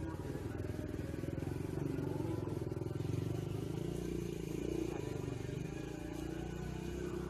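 An engine running steadily, with a low, rapid pulsing, slightly louder a couple of seconds in.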